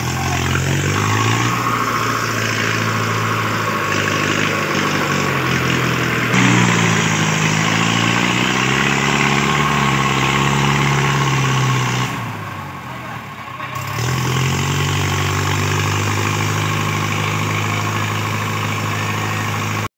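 Sonalika tractor's diesel engine running under load with a trolley heaped with earth. The revs rise and fall back about six seconds in. The engine drops away briefly a few seconds later, then settles back to a steady run.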